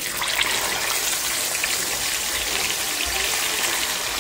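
Hot cooking oil sizzling and crackling steadily in a deep pot as whole snapper fish go in to deep-fry.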